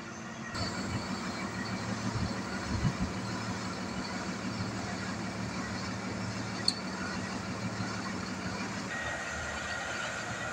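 Heavy recovery truck's diesel engine running steadily as it moves off, towing a broken-down Scania OmniDekka double-decker bus on its underlift. A steady low hum fades about 9 seconds in, and there is one sharp click a little before that.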